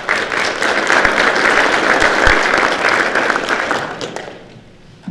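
Audience applauding, a dense patter of many hands that dies away about four seconds in.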